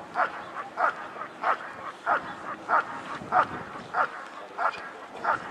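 German shepherd barking steadily and rhythmically, about one and a half barks a second, in the repeated barking a Schutzhund dog gives while holding and guarding the helper.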